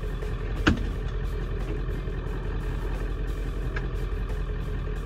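Diesel engine of a Ford F350 pickup idling steadily, heard from inside the cab. A single sharp knock sounds a little under a second in.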